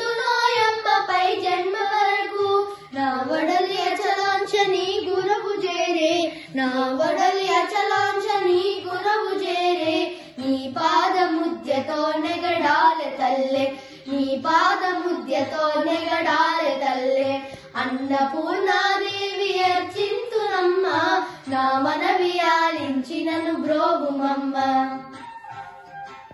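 Two boys singing a devotional song to Annapurna Devi together, in long, wavering held notes with short breaths between phrases. The singing stops about a second before the end.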